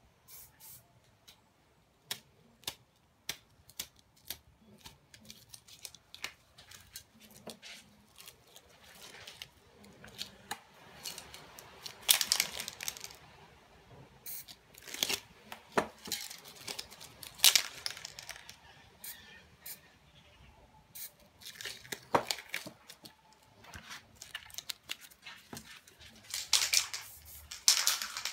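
Aerosol spray paint can hissing in short bursts, among scattered clicks and the crinkle of a sheet being handled and pressed onto the painted surface.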